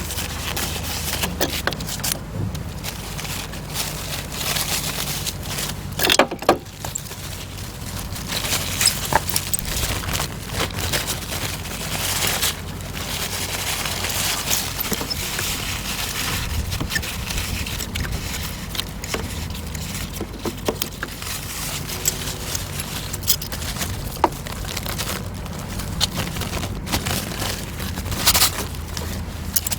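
Metal hand tools and parts clinking and scraping in irregular short clicks, over a steady low hum.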